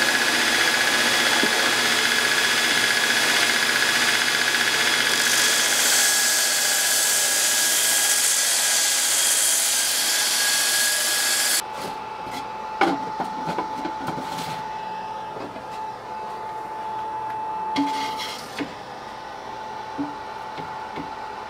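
Belt-grinding head on a surface grinder running against a steel sword blade, with a loud, steady abrasive grinding and a high whine; the grinding gets brighter about a quarter of the way in. It cuts off abruptly about halfway, leaving a quieter steady hum with a few sharp knocks.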